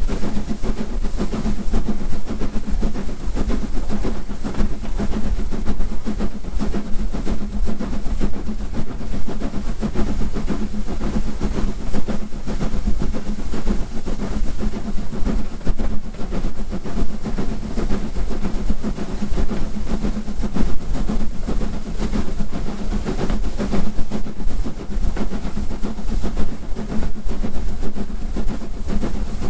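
Southern Railway S15 class 4-6-0 steam locomotive working hard up a steep incline: a steady, loud mix of its exhaust and the train's wheels running on the rails.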